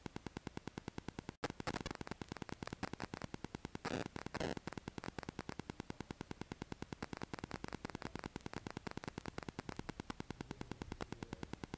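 Electrical interference on a static camera's audio: a fast, even pulsing static that runs without letting up, with a brief dropout about a second and a half in and louder bursts of noise just after it and around four seconds in.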